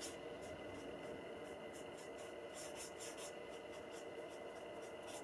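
Stampin' Blends alcohol marker stroking over cardstock: a faint scratchy rub repeated about two to three times a second as the colour is worked in to blend.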